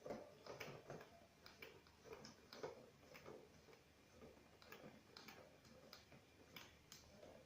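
Faint, irregular plastic clicks and taps as the water faucet is fitted and screwed onto the water ionizer.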